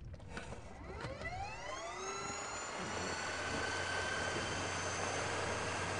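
Torqeedo Cruise 4.0 electric outboard whining as it speeds up: the pitch rises over about two seconds, then holds steady at a high whine, over a rush of water. The boat is being taken up onto plane.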